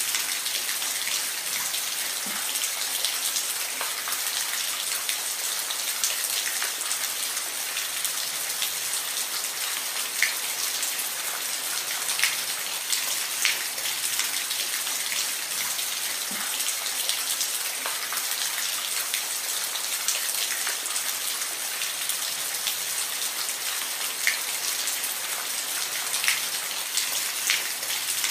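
Steady rain falling, an even hiss with scattered close drops ticking sharply on a surface.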